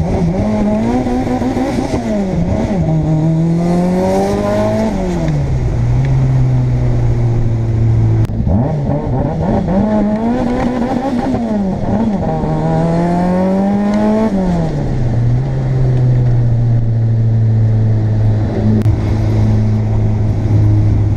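Turbocharged Toyota 4A-GE 20-valve engine in a KE70 Corolla wagon, heard from inside the cabin, pulling up through the gears. Twice its note climbs, drops at a gear change, climbs again, and then settles back to a steady cruise.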